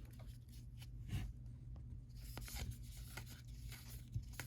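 Baseball cards being handled and flipped through: faint card stock sliding and rubbing, with a few light clicks, over a low steady hum.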